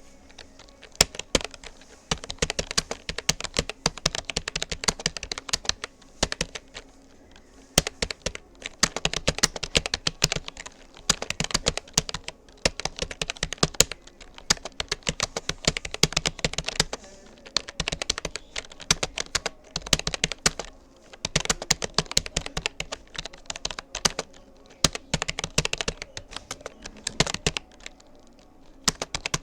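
Typing on a Rapoo computer keyboard: rapid runs of key clicks with short pauses between bursts.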